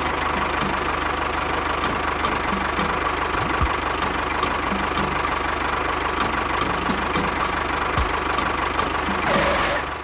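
Diesel tractor engine running steadily, with a regular knocking beat of a few strokes a second over a low hum.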